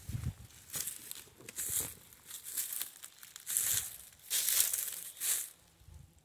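Footsteps crunching through dry fallen leaves, about one step a second, stopping near the end.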